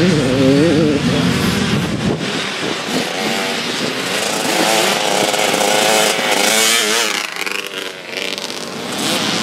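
Youth dirt bike engines racing, several at once, the pitch rising and falling as the riders work the throttle over the bumps. The sound stays loud throughout, with a brief dip a little before the end.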